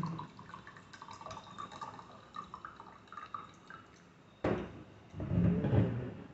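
Black tea poured from a steel vacuum flask into a drinking glass. At first it is a faint trickle with drips; about four and a half seconds in, it turns suddenly into a heavier splashing pour with glugging from the flask.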